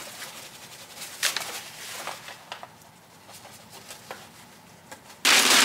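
Brown paper rustling and rubbing over a glass pane as a spot is wiped off it: faint scattered rustles and light taps, then a loud, continuous rustle starting near the end.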